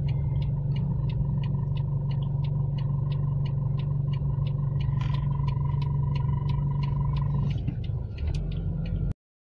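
A car's turn-signal indicator ticking evenly, about three ticks a second, over a steady low engine hum heard inside the cabin. The hum changes near the end as the car pulls into its turn, and the sound cuts off abruptly just before the end.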